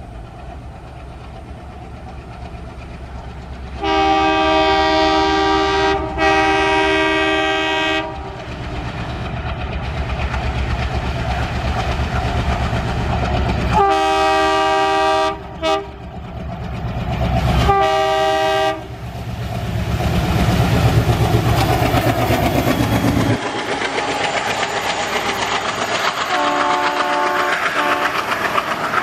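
Diesel freight locomotives, an ALCO WDM-3A leading an EMD WDG-4, approaching: a long multi-note horn blast about four seconds in, then several shorter blasts around the middle over a growing engine rumble. In the last few seconds, loaded flat wagons roll past with a steady clickety-clack of wheels over the rail joints.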